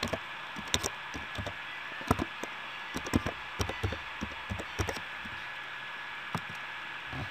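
Computer keyboard being typed on: an irregular run of short key clicks while a password is entered. The clicks thin out after about five seconds, with a couple more near the end.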